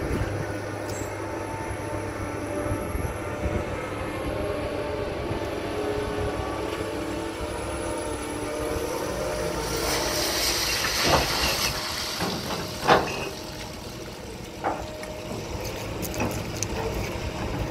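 Liebherr HS 8130 crawler crane's diesel engine and winches running steadily under load while it works a dragline bucket. About halfway through comes a rushing hiss, then a few sharp metal clanks from the bucket and its chains as the bucket tips and empties.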